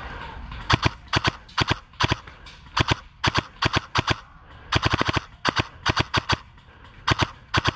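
Airsoft rifle firing rapid shots in pairs and short strings of two to four, each a sharp snap, beginning about a second in.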